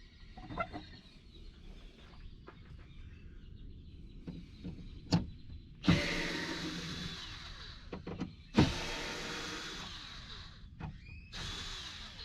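Power drill-driver running in three bursts, the first two about two seconds long and the last shorter, each starting with a sharp click; it is backing screws out of wood, with a few knocks before it.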